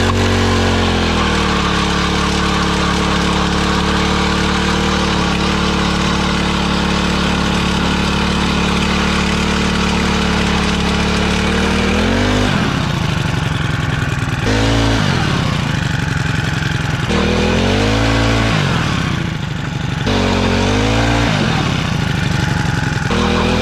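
Power ice auger's small engine running at steady high revs as it drills through the ice. In the second half it is repeatedly revved down and back up, about five times, as the bit is worked up and out of the hole.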